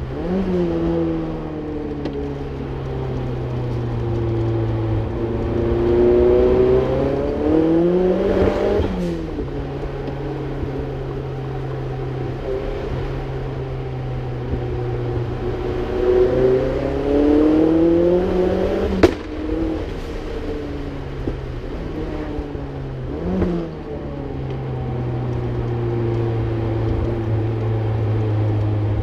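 Mazdaspeed 3's turbocharged 2.3-litre four-cylinder with a cattless downpipe and HKS cat-back exhaust, heard from inside the cabin, pulling up through the revs and dropping pitch at each gear change, several times, with steady road noise underneath. One sharp crack comes about two-thirds of the way through, and a quick rev blip follows a few seconds later.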